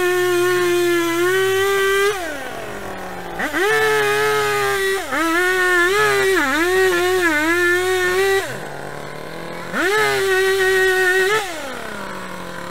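Rental chainsaw cutting into a tree stump at full throttle, its pitch dipping a few times as the chain bites into the wood. It drops back to a lower idle three times between the cutting bursts.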